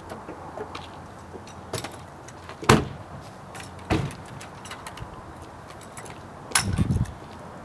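Car door of a sedan opened and shut as someone climbs out, with sharp knocks about two and three-quarter seconds and four seconds in, and a short clatter of knocks near the end.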